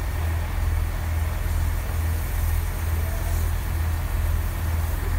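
Steady low rumble with a slow, even pulse from Bulleid West Country class steam locomotive 34046 Braunton, standing at the platform.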